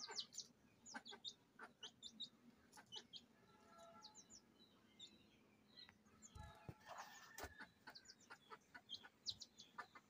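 Faint chicken sounds: chicks peeping with many short, high chirps that fall in pitch, and a hen clucking softly twice in the middle.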